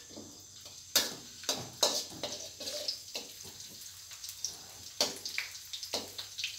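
Metal wok spatula scraping and knocking against a steel wok, with a sharp strike about a second in and several more after, as chopped ginger and garlic sizzle in hot vegetable oil.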